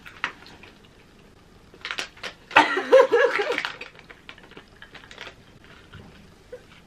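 Women laughing, with a loud burst of laughter about two and a half seconds in, over scattered crackles and clicks from a foil crisp packet being handled.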